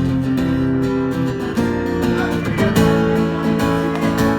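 Live band playing, guitar chords strummed and left ringing, amplified through a venue PA.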